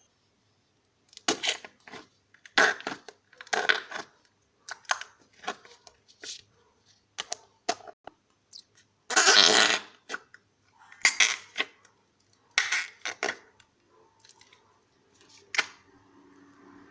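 Homemade slime being squeezed and poked, giving a string of irregular squelching, fart-like pops. The longest, loudest squelch comes about nine seconds in.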